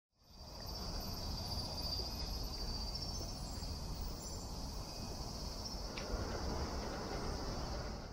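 Insects chirring steadily in a high, even band over a low outdoor rumble, the ambience fading in at the start and out at the end.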